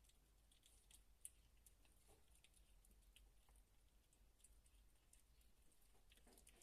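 Near silence with faint, scattered small clicks and ticks and one sharper click about a second in.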